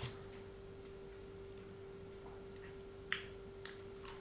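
Low room tone with a faint steady hum. In the last second or so come three short faint clicks: lip smacks from eating Nutella and licking it off the fingers.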